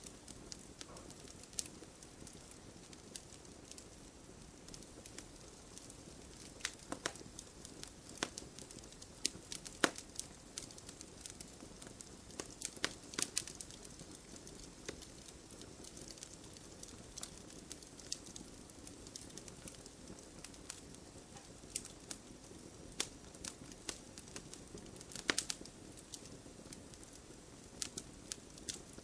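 Wood fire crackling: irregular sharp pops and snaps, a few louder ones, over a soft steady rustle of burning.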